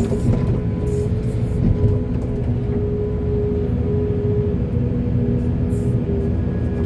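Heavy excavator's diesel engine running steadily, with a held whine over a low rumble.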